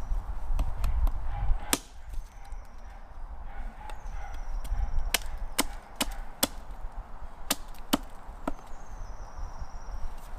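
Wood being chopped: about seven sharp, irregularly spaced strikes, some in quick pairs.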